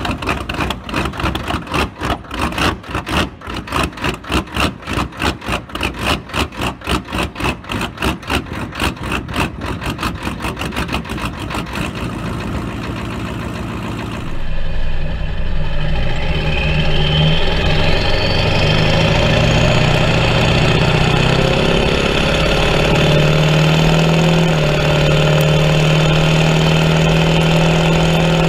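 Ford 7.3 IDI V8 diesel in an old Ford pickup running with a heavy, even pulsing of about four to five beats a second while smoke puffs from the exhaust. About halfway through it cuts to a diesel vehicle under way: a steady engine drone with a high whistle rising over a couple of seconds, then holding.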